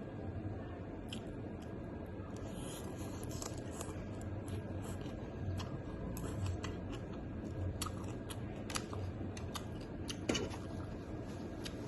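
Close-up eating sounds: chewing with irregular crisp clicks and crunches.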